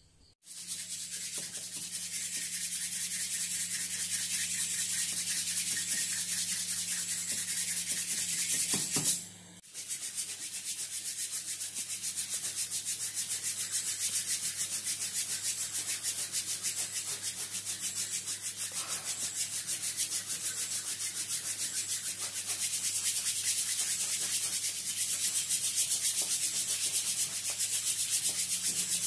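Hands rubbing briskly and continuously over a person lying in bed, a fast, even scratchy rubbing over skin and cloth, with a steady low hum underneath. It breaks off for a moment about nine seconds in.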